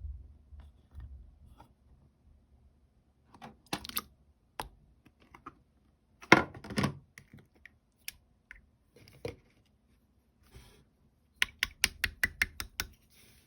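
Clear, yellowish slime being squeezed and poked by hand, giving wet clicks and pops. There is a louder squish about halfway through and a quick run of about eight sharp clicks near the end.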